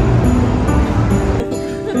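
Background music with sustained notes over a heavy bass; the bass drops out about one and a half seconds in.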